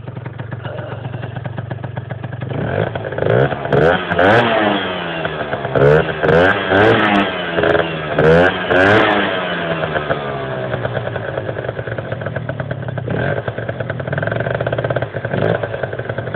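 Piaggio Zip moped engine idling, then revved in a run of about eight quick throttle blips, each rising and falling in pitch, before settling back to idle. It is running after a near-complete rebuild.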